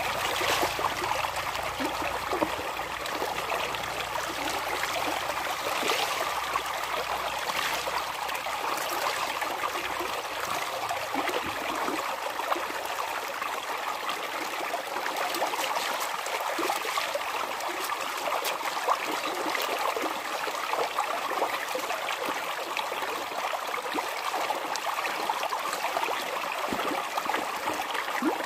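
Clothes being washed by hand in a plastic bucket: water splashing and dripping in scattered bursts over a steady rush of running water.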